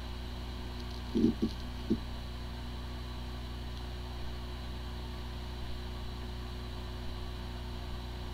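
Hard drive spinning with a steady hum and whine of several fixed tones, with a couple of short low thuds between one and two seconds in. The drive spins normally but cannot be accessed, a symptom of disk firmware corruption.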